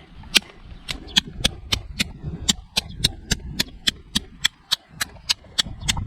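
Victorinox Hunter Pro knife blade struck again and again against a hard object in an edge-retention test: sharp, rhythmic clicks about four a second.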